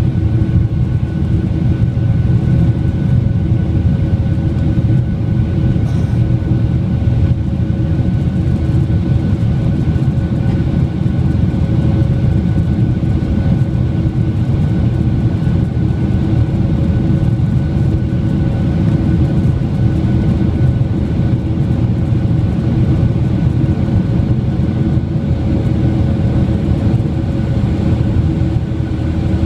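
Boeing 757 turbofan engines at climb power, heard inside the cabin beside the engine: a steady deep rumble with several constant whining tones over it.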